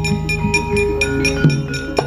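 Javanese gamelan playing: metal keys struck in a quick, even beat over held, ringing tones.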